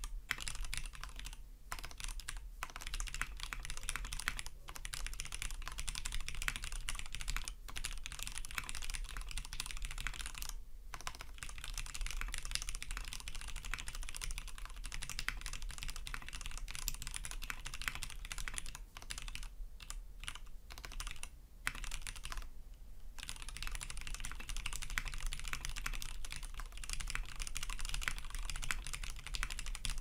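Continuous typing on a gasket-mounted NESON Design 700E custom mechanical keyboard with an aluminium plate, lubed Cherry Nixie linear switches and PBT keycaps: a dense stream of key clacks. The typing stops briefly a few times, the longest gap about three quarters of the way through.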